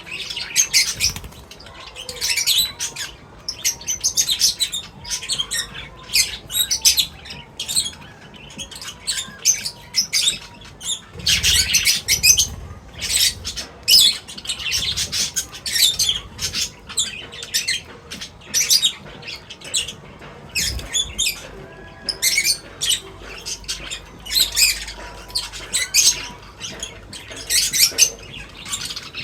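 A flock of small birds chirping in quick, overlapping calls, with occasional wing fluttering.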